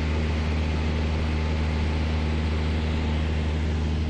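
Cessna 172M's four-cylinder engine and propeller running steadily in cruise, heard inside the cabin as an even drone with a low hum.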